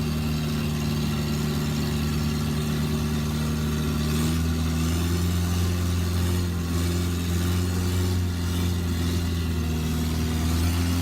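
Boat engine running steadily, its pitch stepping up slightly about four seconds in.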